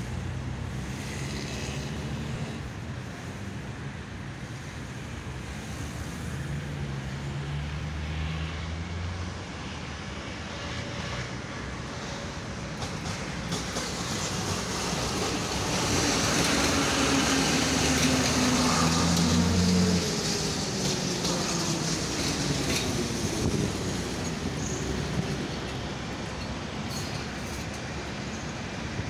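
Metro train running past on surface track: a low electric motor hum that steps up in pitch, with steel wheels on rails loudest in the middle. Near the end a whine falls in pitch.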